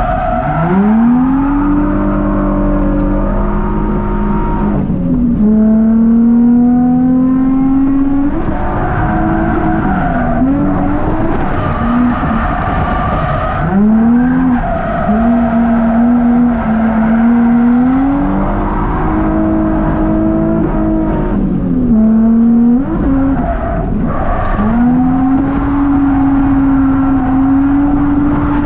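Nissan Z33's VQ V6 engine, heard from inside the cabin while drifting. It revs high and holds, drops, then climbs again about five times, with tyre squeal underneath.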